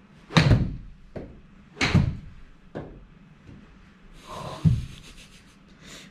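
Golf iron striking a ball off a hitting mat with a sharp crack about half a second in. A second loud knock follows about a second and a half later, with fainter knocks between, as the ball strikes the impact screen and rebounds.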